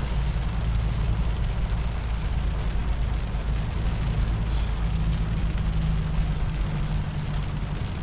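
Inside a moving car in the rain: a steady low rumble of engine and tyres on the wet road, with rain hissing on the windshield and body.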